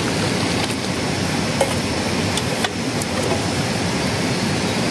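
Steady rushing outdoor noise, with a few light clicks partway through as a steel bowl touches an iron wok while liquid is poured in.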